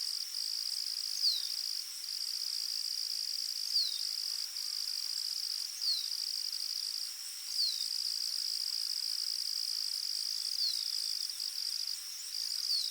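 Insects trilling in a continuous high-pitched chorus that breaks off briefly now and then, with a short falling chirp every two seconds or so.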